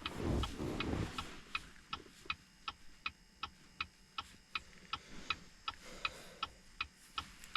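Steady, even ticking, about two and a half ticks a second, each tick with a slight ringing tone. A short rustle of handling lies under the first second.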